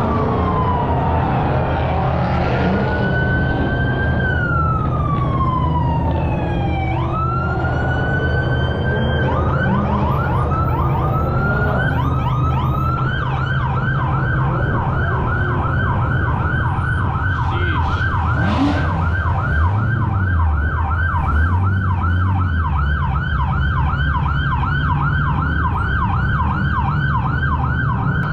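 Police car siren sounding a slow rising-and-falling wail, switching about ten seconds in to a fast, repeating yelp. A steady low hum of idling car engines lies underneath.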